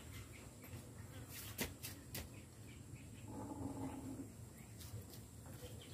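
A few faint sharp clicks, then a short pitched animal call lasting about a second, over a steady low hum.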